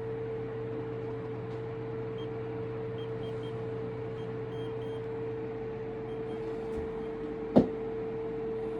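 Steady mechanical hum with one constant tone, faint short high beeps a few seconds in, and a single sharp click near the end.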